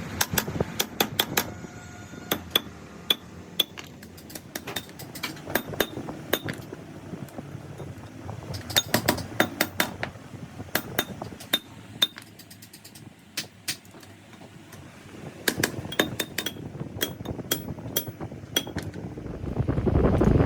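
Irregular metallic clinks and taps of metal parts and tools being handled, some ringing briefly. A louder steady machine noise comes in near the end.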